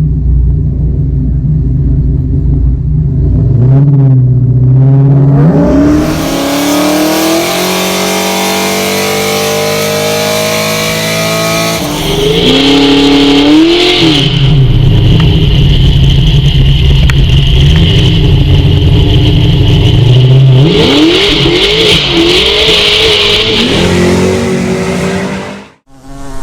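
Pontiac G8 GT's V8 engine under hard acceleration, its pitch climbing again and again with drops between the climbs as it shifts up through the gears. The sound cuts off suddenly near the end.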